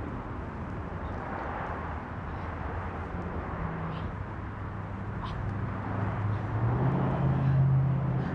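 A motor or engine running steadily with a low hum, growing louder over the last couple of seconds.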